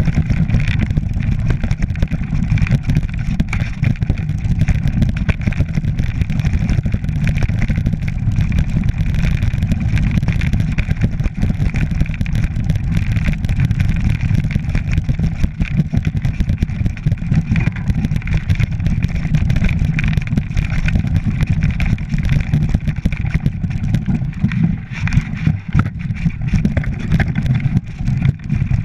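Mountain bike rattling and clattering over loose rocks on a fast descent, with many small knocks and a steady buzz, under heavy wind rumble on the bike-mounted camera's microphone.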